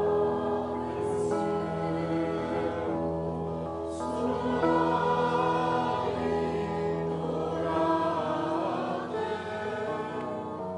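A choir singing sustained, slow-moving chords over instrumental accompaniment.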